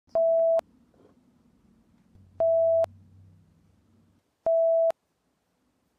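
Three identical electronic beeps at one steady mid pitch, each about half a second long and about two seconds apart.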